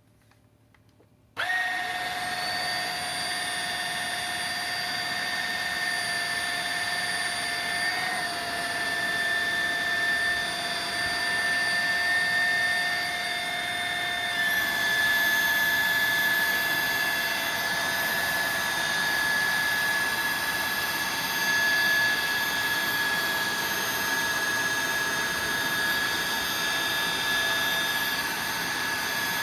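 iRoom RS1 cordless vacuum cleaner switched on about a second and a half in, its motor running with a steady high whine. About halfway through, the whine shifts in pitch and gets a little louder.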